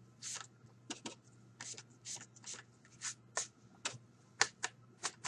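Brisk scrubbing and dabbing strokes of an inking tool on cardstock as Distress ink is worked into the paper, about two or three short swipes a second, with a few sharper taps among them.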